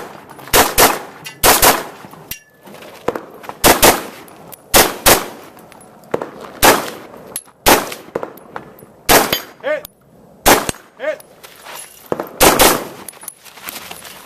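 AR-15 semi-automatic rifle firing a string of shots at a 3-gun stage, mostly in quick pairs about a quarter second apart, with a pause of a second or two between pairs.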